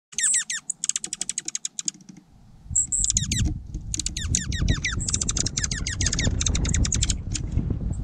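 Small songbird giving several bursts of rapid trills, each made of quick downward-sweeping high notes at about ten a second. From about two and a half seconds in, low wind rumble on the microphone runs underneath.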